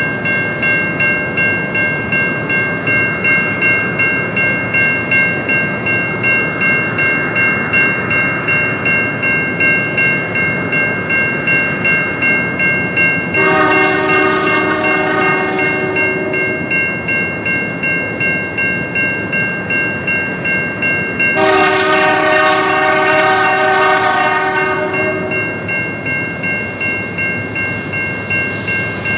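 Railroad grade-crossing warning bell ringing steadily, a little over one strike a second, while the approaching freight train's locomotive horn sounds two long blasts, the first about 13 seconds in lasting about three seconds, the second about 21 seconds in lasting about four seconds.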